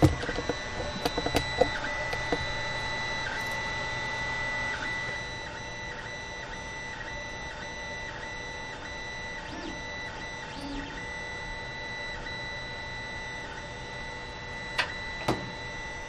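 Creality Ender 5 Plus 3D printer printing on its stock, non-silent mainboard. Its stepper motors whine in high tones that break off and jump in pitch every fraction of a second as the moves change, over a steady lower tone, with a few clicks in the first two seconds and again near the end.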